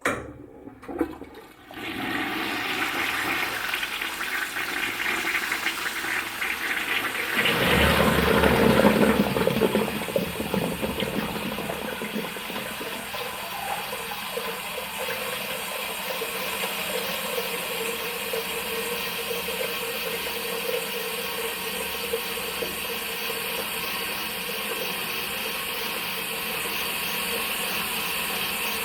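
Toilet flushing: two sharp clicks at the start, then water rushing, swelling to its loudest about eight seconds in, then settling into a steady, even rush of running water.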